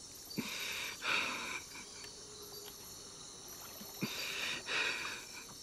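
Two heavy breaths, each an in-and-out pair of rushing air opening with a small click, about three and a half seconds apart, over a steady high chirring of insects.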